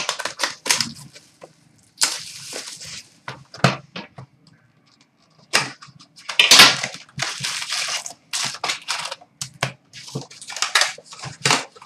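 Plastic shrink-wrap crackling and tearing as a sealed box of hockey cards is unwrapped and opened, mixed with sharp clicks and taps of cardboard packs handled on a glass counter.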